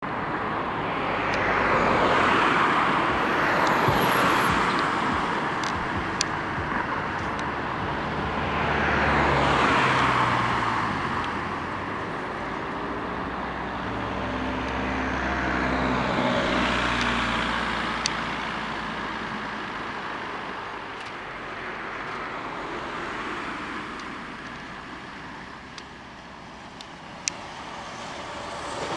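Road traffic: vehicles passing one after another, each swelling and fading, with a heavier engine's low hum in the middle stretch.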